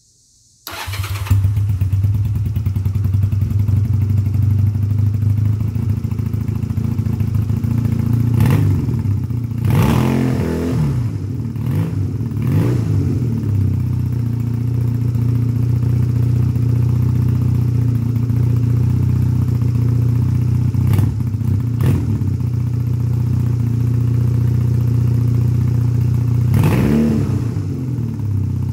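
1986 Honda Rebel 250's air-cooled parallel-twin engine starting about a second in and settling into a steady idle. The throttle is blipped a few times around the middle and once more near the end, the revs dropping back to idle each time, a check of the newly fitted throttle cables.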